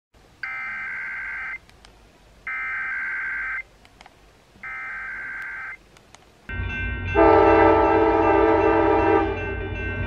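Emergency Alert System SAME digital header sent three times: three screeching data-tone bursts of about a second each, a second apart. About 6.5 s in, the sound cuts to an outdoor rumble, and a passenger train's multi-note locomotive horn sounds one chord for about two seconds.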